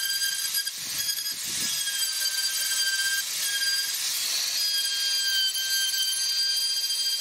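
Handheld rotary tool running with a steady high-pitched whine, its small carving bit grinding into wood in short passes about a second in and again about four seconds in, the pitch dipping slightly under load.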